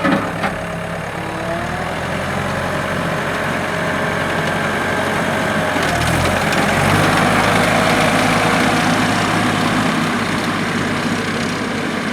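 ASV RC-100 tracked skid steer's 99.5 hp Perkins turbo diesel running steadily. Its engine note shifts about six seconds in. Two short knocks sound near the start.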